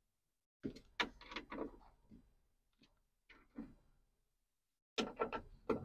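Phillips-head ratchet clicking in short runs as the door lock actuator's mounting screws are tightened, with a few light clicks and knocks of the tool against the metal door.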